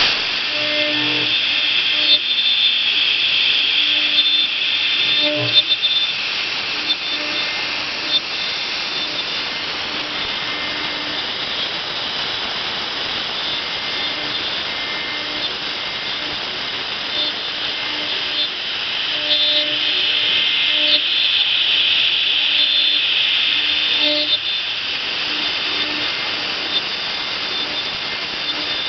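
CNC engraving machine running and cutting, its spindle making a steady high-pitched whine over cutting noise. The whine grows louder for a few seconds near the start and again past the middle.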